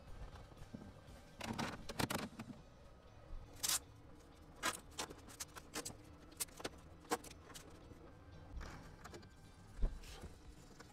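Irregular light clicks and taps with a couple of short rustles, and a dull knock near the end: small parts being handled.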